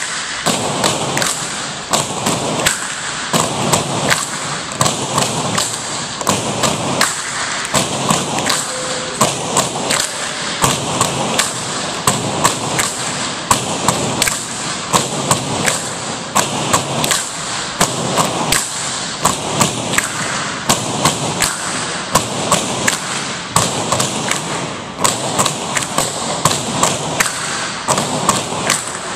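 Tinikling poles knocked on the hardwood gym floor and clapped together in a steady repeating rhythm, with dancers' feet stepping between them.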